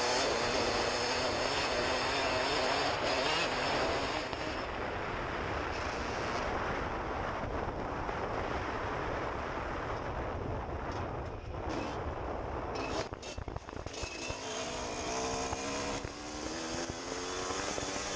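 Suzuki RM125 two-stroke single-cylinder dirt bike engine running under throttle while riding, mixed with heavy wind buffeting on the helmet-mounted camera. The throttle is eased briefly past the middle, and near the end the engine note climbs as the bike revs up.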